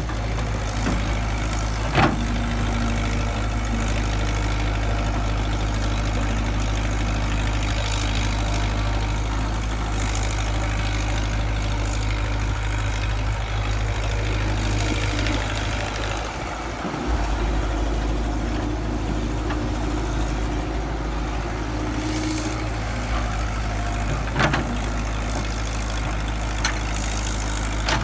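Excavator's diesel engine running steadily with a deep drone, briefly dipping about two-thirds of the way through, with two sharp knocks, one near the start and one near the end.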